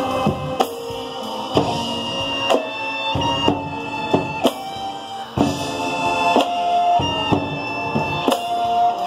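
Marching band playing, with brass and woodwinds holding chords over drums and percussion. Strong accented hits land about once a second in a steady beat.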